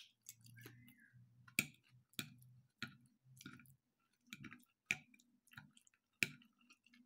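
Metal fork clicking and scraping against a ceramic plate while picking up pasta: a string of sharp clicks, the loudest about a second and a half apart, with faint soft chewing between them.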